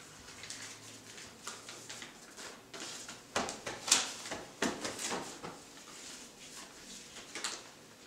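A folded sheet of paper rustling and crackling as it is taken out and opened, with the densest burst of crinkles a few seconds in.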